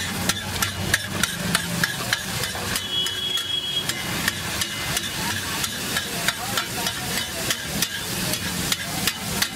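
Metal spatula repeatedly clacking and scraping on a flat griddle, about three strokes a second, as masala gravy is spread and chopped over an egg omelette that sizzles underneath.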